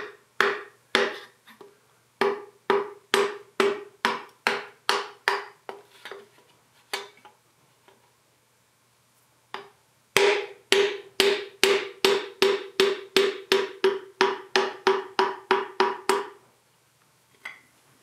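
Hammer tapping a wooden dowel to drive a piston up and out of its cylinder bore in a Yanmar 3TN75 diesel block. Each tap rings briefly at one pitch. A run of taps about two a second fades away, and after a pause of a few seconds a faster run of about four a second stops shortly before the end.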